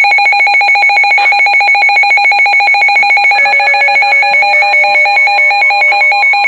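Loud electronic alert tone from an emergency alert broadcast, trilling rapidly like a telephone ring. A second, lower tone joins about three and a half seconds in.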